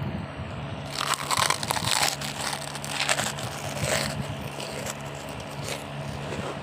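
Chips crunching as they are chewed: a quick run of crisp crunches starting about a second in and fading out a few seconds later, over a steady low hum.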